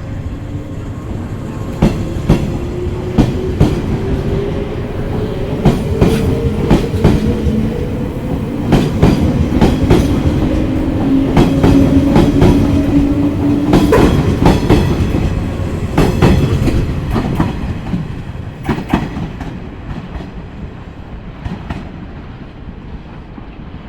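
A train passing, its wheels clacking over rail joints, with a motor whine that rises slowly in pitch. It is loudest about halfway through, then fades as the train moves away.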